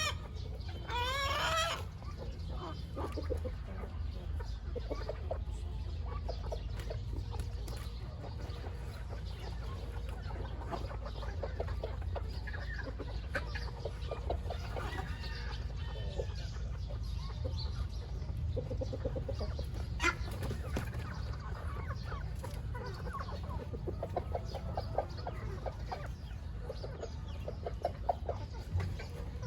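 A flock of chickens clucking while they feed, with a louder drawn-out call about a second in. A steady low rumble runs underneath.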